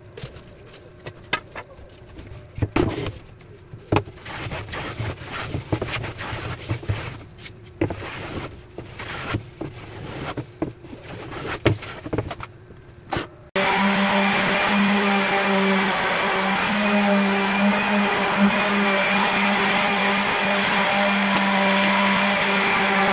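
Scattered knocks and clatter as a plywood panel is handled, then, a little over halfway through, an electric palm sander with a square pad switches on suddenly and runs steadily with a humming motor, sanding the face of the plywood.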